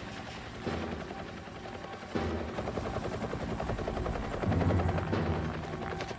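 Light helicopter flying overhead, its rotor chopping rapidly over a steady engine drone. It swells loudest about four and a half seconds in.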